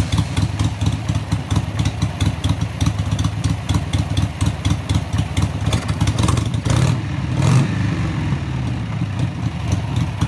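Harley-Davidson V-twin with a CV carburetor idling just after a restart, its idle speed freshly set at the carburetor's idle screw. It swells briefly twice about seven seconds in.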